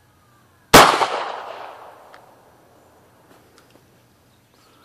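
A single shot from a Hi-Point 9mm pistol, a sharp report about a second in that echoes and dies away over about a second and a half.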